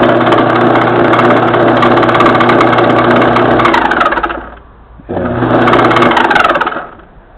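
Craftsman Dunlop 109 metal lathe running at its high speed setting, a steady loud motor-and-spindle whir with a fixed hum. It shuts off about four seconds in, then is run again for about two seconds before stopping.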